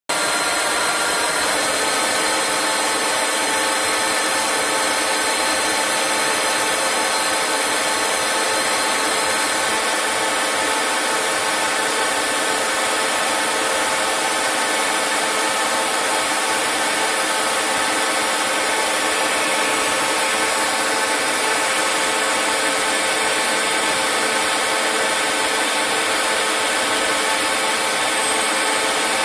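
CNC lathe running and turning a metal part: a steady machine noise of high hiss with several steady whining tones from the spindle and cutting.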